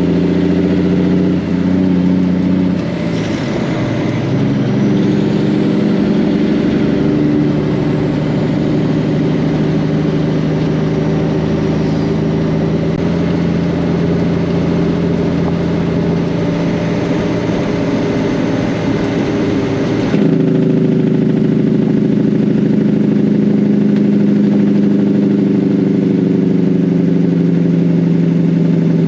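An engine running steadily, its pitch and tone changing abruptly about three seconds in and again about twenty seconds in.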